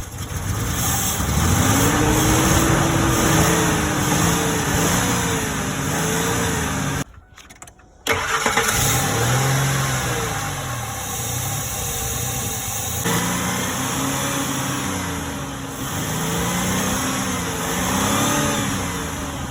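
2003 Ford F-150 engine running with its speed swinging up and down again and again instead of holding a steady idle, which the owner puts down to a bad vacuum leak. The sound breaks off for about a second around seven seconds in, then the engine is heard again.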